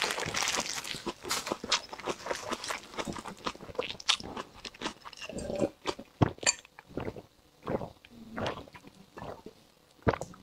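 Close-miked eating sounds: crunching and chewing, dense at first and thinning out after about five seconds, then a few swallows as a drink is taken.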